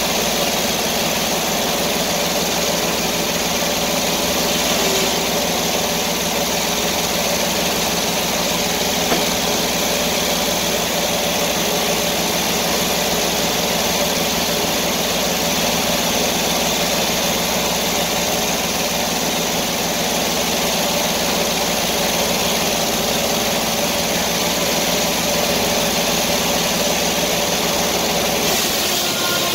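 Sawmill engine running steadily at constant speed; its low tone drops away just before the end.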